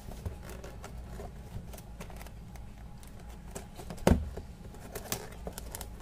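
Hands opening and handling a cardboard headphone box: scattered light taps, clicks and rustles of the packaging, with one sharp knock about four seconds in, over a low steady hum.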